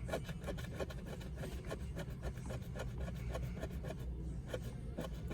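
A scratch-off lottery ticket being scratched: short rasping strokes, several a second, scraping the coating off the card.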